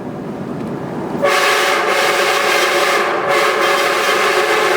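Aftermarket train horn on a Ford Explorer blasting one long, loud chord of several steady notes. It cuts in suddenly about a second in, over the truck's road noise, and holds steady in a road tunnel.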